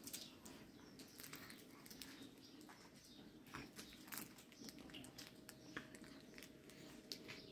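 Near silence: room tone with a faint steady hum and scattered faint clicks and rustles.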